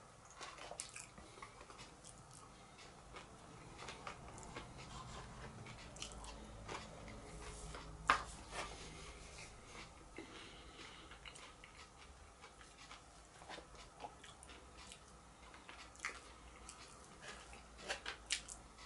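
A person chewing mouthfuls of roast vegetables, close up, with scattered light clicks and taps of a fork and spoon against a cardboard takeaway box and paper cup; one sharper click about eight seconds in.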